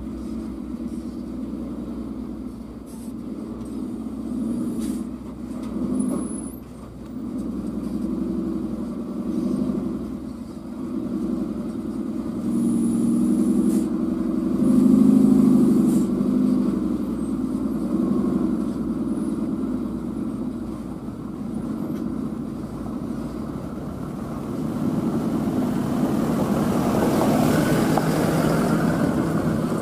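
Diesel engine of a loaded Hino dump truck pulling up a dirt track. It grows louder to a peak about halfway through, eases off, then swells again near the end.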